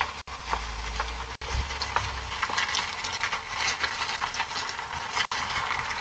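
SUV engine idling, with scattered footsteps and ticks on pavement, heard through a doorbell camera's small microphone. A low rumble sits under it for the first couple of seconds and then fades.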